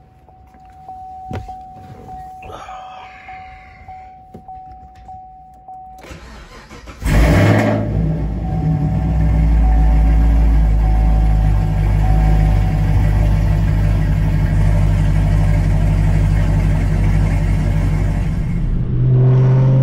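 Chevrolet Camaro SS's 6.2-litre V8 starting with a sudden loud burst about seven seconds in, then settling into a steady, loud idle. Before the start a thin steady electronic tone sounds with a few soft clicks.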